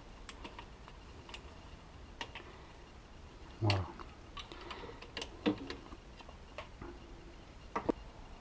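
Scattered light metallic clicks and taps as a tool drives in and tightens the screws of the ignition backplate on a Solex moped engine. One louder, duller thud comes about three and a half seconds in, and a couple of quick ticks come near the end.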